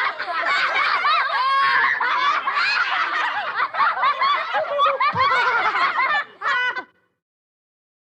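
A group of children laughing and giggling together, many high voices overlapping, which cuts off abruptly about seven seconds in and leaves dead silence.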